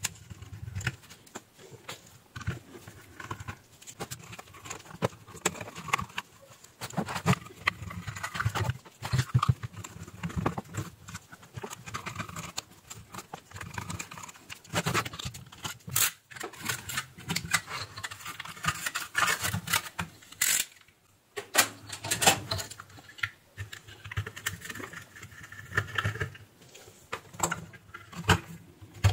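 Irregular clicks, scrapes and rattles of a sheet-metal switch-mode power supply case and its circuit board being handled and worked with a screwdriver, pausing briefly about two-thirds of the way through.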